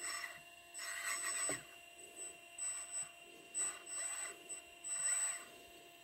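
Radio-controlled hydraulic Cat 374F excavator model working: a faint steady whine with about seven short bursts of hiss and whirring as the arm moves, and a light knock about one and a half seconds in.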